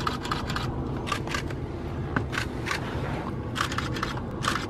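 Camera shutter clicking in quick runs of two or three shots, about a dozen clicks in all, over a steady low rumble.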